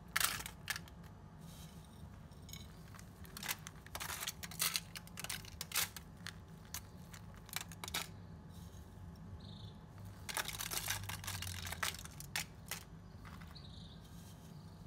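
Scattered short rustles and crinkles of hands working over a foil-lined baking pan while coconut flakes are sprinkled onto the chicken, over a faint low hum.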